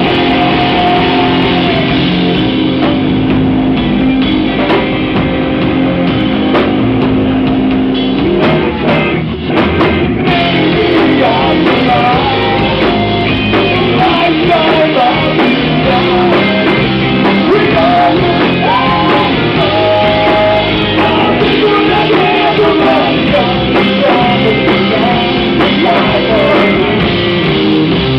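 Rock band playing live: guitars, bass and drum kit with singing, loud throughout, dipping briefly about nine seconds in.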